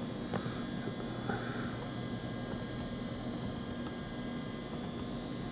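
Steady electrical mains hum, with a few faint clicks of a computer keyboard in the first couple of seconds.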